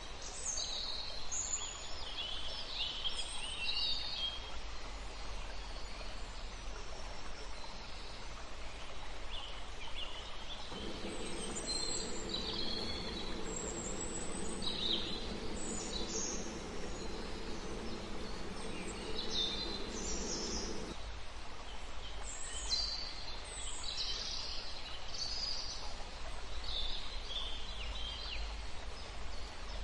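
Small birds chirping in short scattered calls over a steady background hiss. A low steady hum comes in for about ten seconds in the middle.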